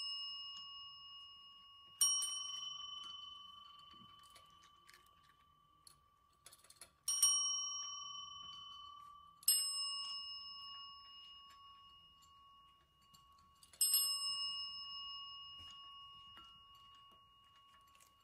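Chrome desk service bells struck four times a few seconds apart, each a bright ding that rings on and fades slowly, with an earlier ring still dying away at the start.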